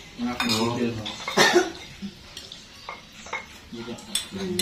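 Spoons and a ladle clinking against plates, bowls and a steel soup pot during a shared meal, a handful of separate clinks with voices in the background.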